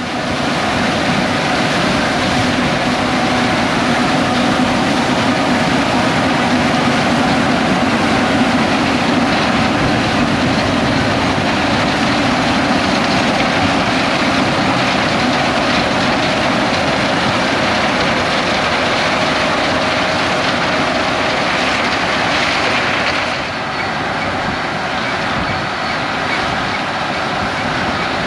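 John Deere X9 1100 combine harvester running steadily while harvesting corn, a loud, even machine noise that drops a little about 23 seconds in.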